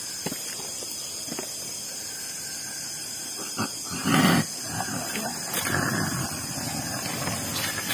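A man in trance making animal-like growling cries, with a loud outburst about four seconds in; those present take him to be possessed by a white tiger spirit.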